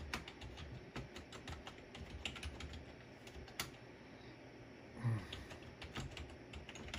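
Typing on a computer keyboard: irregular key clicks as an email address is entered.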